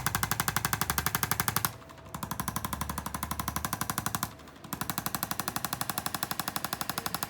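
Handheld electric percussive adjusting instrument tapping rapidly on the rib cage, about eight taps a second, to set the ribs back. It runs in three bursts with short breaks about two and four and a half seconds in.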